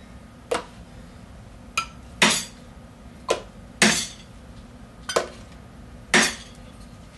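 Pocket knife blade stabbed three times into a steel soup can: three loud metallic clanks spaced about two seconds apart, each with a lighter click of the can or blade shortly before it.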